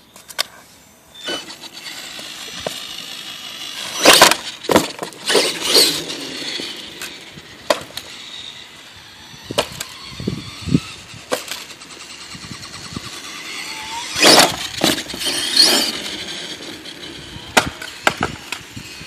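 Radio-controlled monster truck driving on an asphalt driveway: a steady hiss of motor and tyres rolling on the pavement. Loud rough bursts come twice, around four to six seconds in and again around fourteen to sixteen seconds in, as it speeds up or skids.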